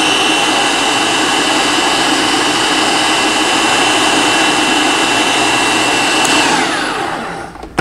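Countertop food processor running, pureeing a thick hummus: a steady whir with a high whine. About six and a half seconds in it is switched off, and the motor winds down with the whine falling in pitch.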